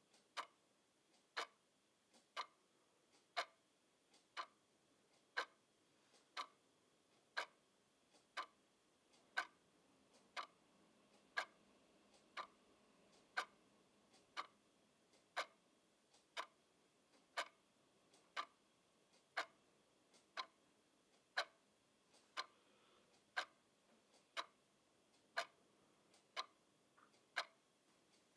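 Mechanical clock ticking steadily, about two ticks a second, alternating a louder tick with a softer tock.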